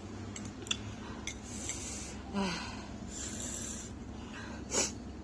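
Close-up mouth sounds of someone eating very spicy noodles: several short hissing intakes of air, a few small clicks, a brief whimper about halfway through and a sharper breath near the end.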